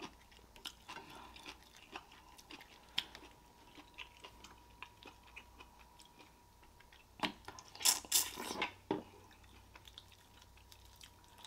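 Close-miked chewing of sauce-coated shrimp: soft wet mouth clicks and crunches, with a louder stretch of wet chewing and mouth noises lasting about two seconds, starting about seven seconds in.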